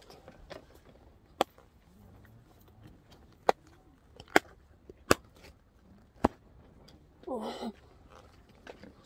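Silicone bubbles of a simple dimple fidget toy pushed in one at a time by hand, each giving a sharp pop-click: about five loud clicks a second or so apart, with fainter ones between. A brief voice sound comes near the end.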